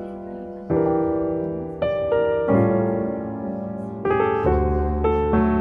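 Background piano music: sustained chords, a new one struck every second or so.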